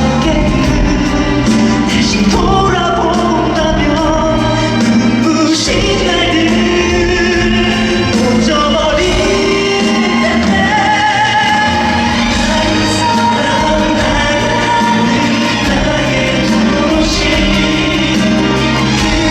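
A live pop ballad sung by a male voice over band accompaniment, recorded from the audience at a concert.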